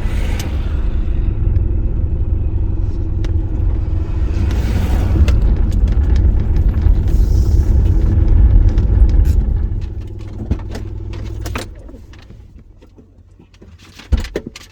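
Car driving, with a steady low road and engine rumble that dies away about ten to twelve seconds in as the car slows; a sharp click near the end.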